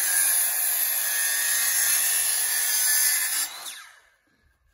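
Corded circular saw running loud and steady as it cuts into a log along marked lines, making the kerf cuts for a square notch. About three and a half seconds in it is lifted out and the blade spins down with a falling whine.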